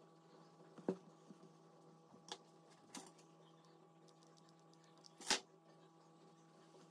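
Handling noises from hot-gluing a denim scrap by hand: a few short clicks and knocks of the glue gun and fabric against the table, the loudest about five seconds in, over a faint steady hum.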